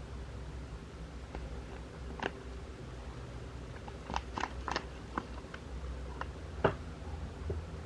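A paper tea-bag sachet crinkling and crackling as it is handled. The crisp crackles are scattered, with a cluster about four seconds in and one sharper tap near the end.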